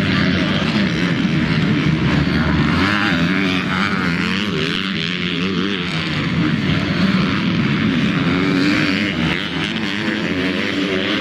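Motocross bike engines revving hard during a race, their pitch climbing and dropping over and over as the riders work the throttle, with more than one engine heard at once.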